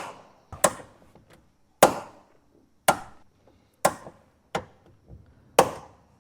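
Volkswagen Gol door clacking as it is swung open and shut: about seven sharp knocks, roughly one a second, the 'tec tec' click of a door check strap. This is the sign of a loose door limiter, fixed by tightening its T40 Torx bolts.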